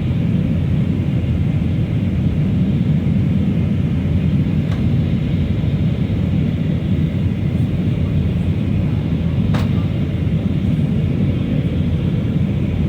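Airbus A319 airliner cabin noise in flight: a steady low roar of engines and rushing air, with a single sharp click about two-thirds of the way through.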